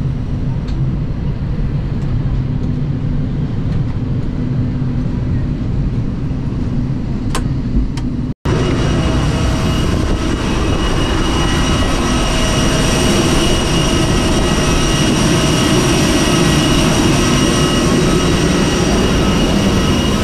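Steady noise of a parked Airbus A320neo during deplaning: a low rumble with a few faint clicks, then, after a sudden cut about eight seconds in, a louder steady hiss with high whining tones from the airliner's machinery.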